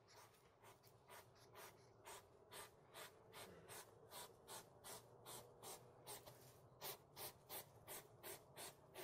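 European hedgehog snuffling as it forages nose-down in grass: faint, quick sniffs about two to three a second, growing more regular and a little louder in the second half.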